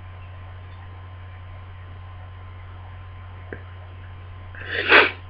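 A steady low electrical hum with a faint click about three and a half seconds in. Near the end a person with a heavy cold lets out a loud, breathy burst that swells and peaks quickly, part of a sneezing fit.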